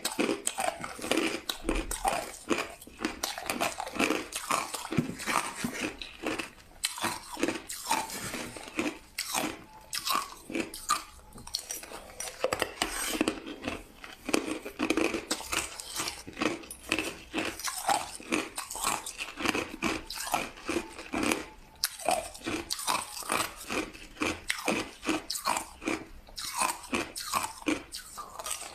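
Close-miked crushed ice being bitten and chewed: a rapid, irregular run of sharp crunches, many a second.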